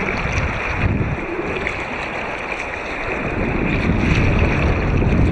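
Steady rush of river water around an inflatable kayak, with a low, uneven wind rumble on the microphone, heard muffled through a waterproof camera housing.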